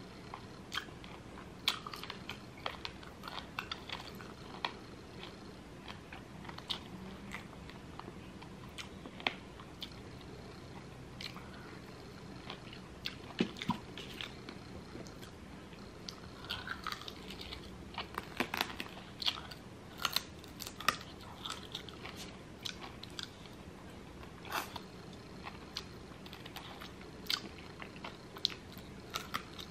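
Chewing and biting of lemon pepper chicken wings: short crisp crunches and clicks at an irregular pace, coming thickest a little past the middle.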